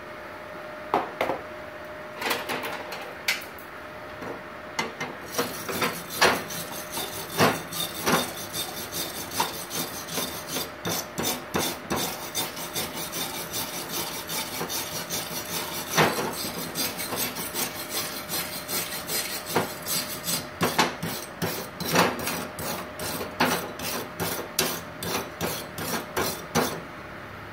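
Hand wire brush scrubbing a freshly MIG-welded aluminium plate, cleaning the weld. A few separate scrapes at first, then quick back-and-forth strokes, about two a second, that stop just before the end.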